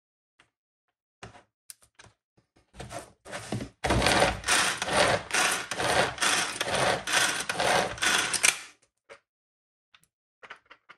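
Pull-cord manual food chopper worked in rapid repeated pulls, its spinning blades chopping onion and garlic in the plastic bowl. A few short pulls about three seconds in lead into a steady run of strokes for about five seconds, which then stops.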